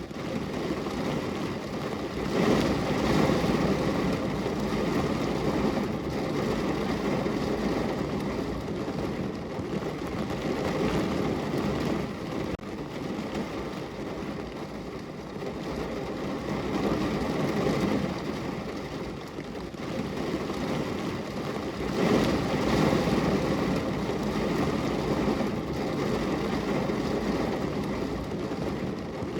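Rain falling on a car's windows and body, heard from inside the car: a steady rush of rain that swells and eases in slow waves.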